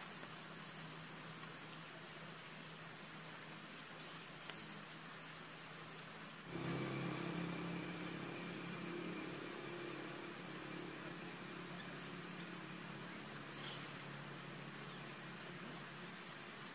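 Steady high-pitched insect trilling over a constant hiss, with short high chirps every few seconds. About six and a half seconds in, a low hum joins.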